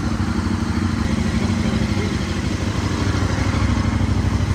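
KTM EXC 450 single-cylinder four-stroke dirt bike engine idling steadily, getting slightly louder near the end.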